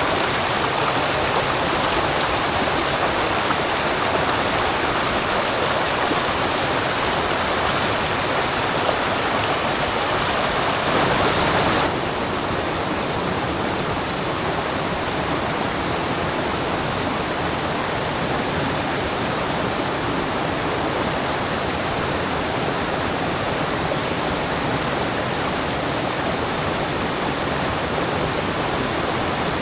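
Rushing water of a mountain headwater stream, a steady full rush. About twelve seconds in it changes abruptly to a slightly quieter, duller rush.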